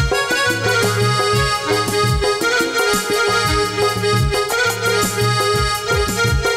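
Instrumental accompaniment of Odia folk theatre: a harmonium plays a sustained reedy melody over regular hand-drum beats that glide down in pitch in the bass.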